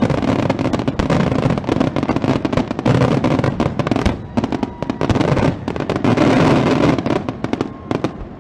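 Fireworks display: a dense, rapid barrage of aerial shell bursts and crackling, dying away just before the end.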